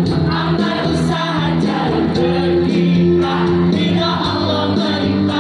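A large choir of schoolgirls singing together, loud and steady, with held notes.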